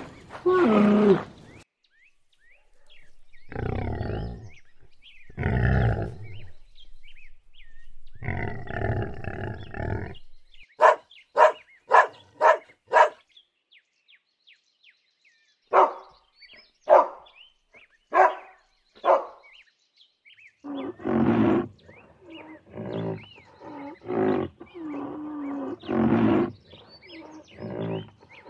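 A string of animal calls in turn. First come low, drawn-out camel groans. Then a dog gives short sharp barks in two quick runs, about five and then four. A run of lower calls follows near the end.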